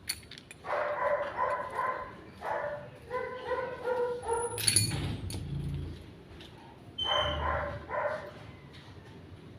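A dog barking several times.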